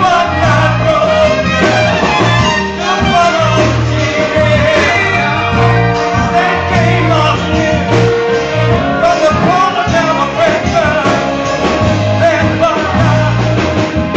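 Live band playing a New Orleans brass-band style tune, with melodic lines and voices over a repeating bass pattern.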